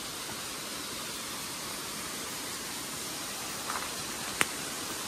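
Steady rushing of water pouring from a spring that never dries up. A single sharp click sounds about four seconds in.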